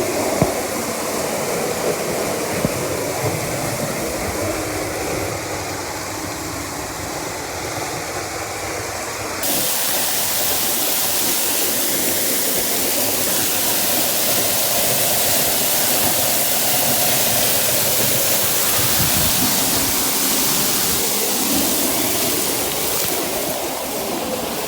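Waterfall water rushing steadily. About nine seconds in it switches abruptly to a louder, hissier rush.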